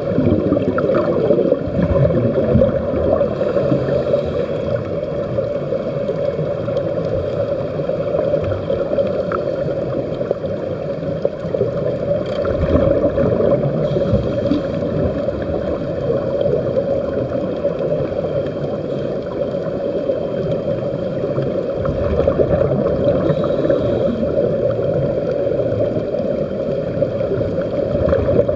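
Steady underwater bubbling and rush of air escaping from surface-fed sea-walking helmets, heard underwater.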